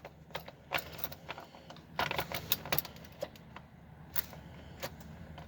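Light scattered clicks and rattles, like keys jangling, in a quiet cab, with no fuel pump whir heard: the Suburban's fuel pump is not running, the sign of a bad pump.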